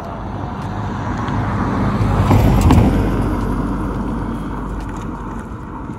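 A road vehicle driving past close by: its engine and tyre noise swells to a peak a little under three seconds in, then fades away.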